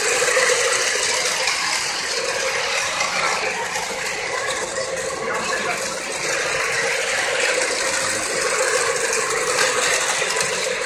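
Model trains running on their track: a steady mechanical rattle of wheels and small motors.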